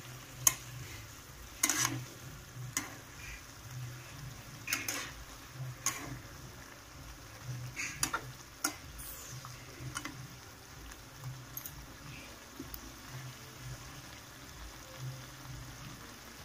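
A spatula stirring and scraping a mushroom and ivy gourd curry in a nonstick frying pan, with irregular scrapes and clicks every second or two over the low sound of the curry frying.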